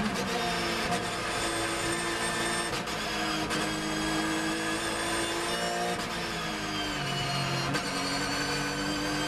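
Onboard sound of a Porsche 911 GT3 R's flat-six racing engine as the car slows for a corner, its note stepping down through the gears with a few sharp clicks, then running at lower revs.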